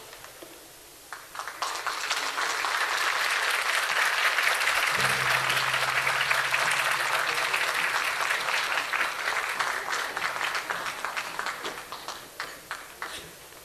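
Audience applauding. It builds over the first few seconds, holds full for several seconds, then dies away to scattered single claps near the end.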